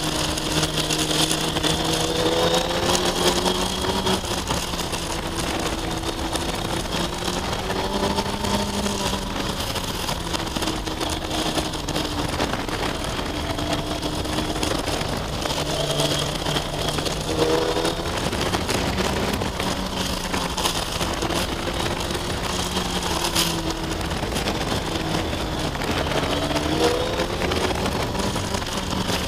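2004 Kawasaki ZX-6R 636's inline-four engine running as the bike is ridden through a run of curves, the revs rising and falling several times as the throttle is opened and closed, over a steady rush of wind.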